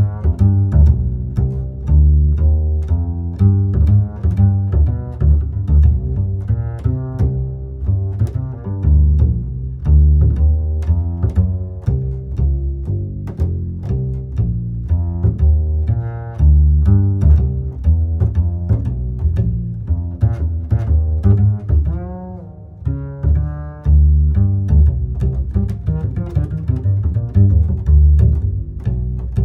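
Background music with a plucked and bowed bass line and strings, moving in a steady rhythm.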